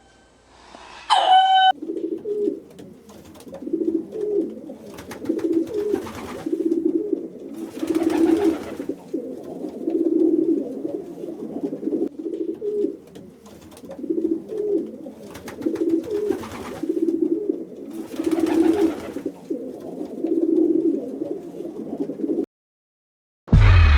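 Pigeons cooing over and over in low, soft phrases, with short rustling noises every couple of seconds. A brief higher call is heard about a second in, and the cooing stops suddenly shortly before the end.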